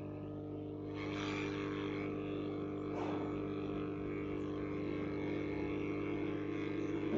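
Hot-air SMD rework gun blowing: a steady fan hum, with a broad airflow hiss that comes in about a second in and holds steady, as the gun heats the solder to fit a replacement MOSFET onto the board.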